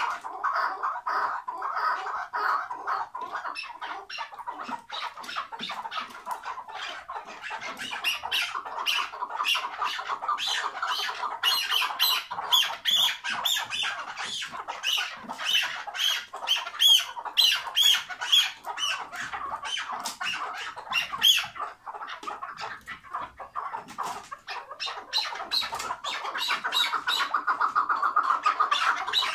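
Caged chukar partridges calling without a break in a long run of rapid, chattering notes: the 'hıngırma' call of the keklik. The notes come brighter and higher in the middle stretch.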